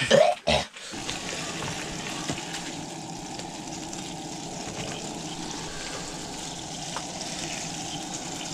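A steady, even hissing rush that sets in about a second in.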